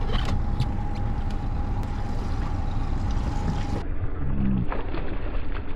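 Small boat's engine idling: a steady low rumble with a faint steady whine, and a few light clicks.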